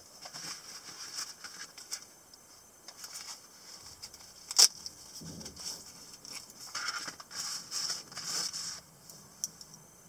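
Nylon knife pouch being handled: fabric rustling and scraping as the flap is opened and a folding knife is drawn out, with one sharp click about four and a half seconds in.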